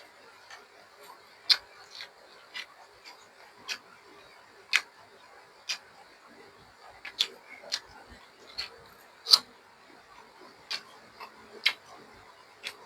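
Close-miked eating: sharp, irregular mouth clicks and smacks, roughly one a second, as someone chews fermented Isan sausage.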